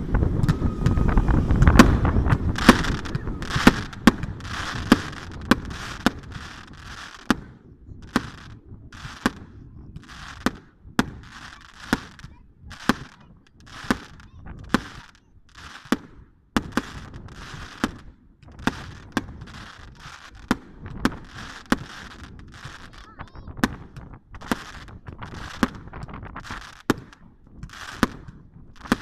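Fireworks display: a steady run of sharp bangs about one a second, each followed by a crackling hiss. Wind rumbles on the microphone for the first few seconds.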